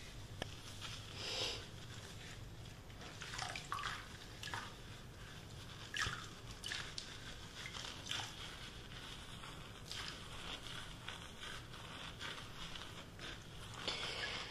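Soft, intermittent wet sounds of hair being washed: short sloshes, drips and swishes of water and hands working through wet hair.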